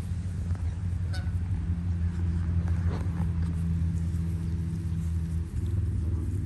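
Canada geese giving short honks over a steady low rumble.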